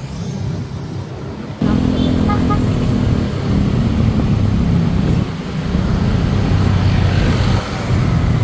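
A motor vehicle running on the road: a steady low engine hum with road noise, which jumps abruptly louder about a second and a half in.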